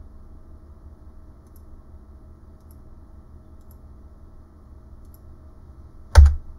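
Faint computer mouse clicks over a low steady hum, then one loud sharp knock with a low thump near the end.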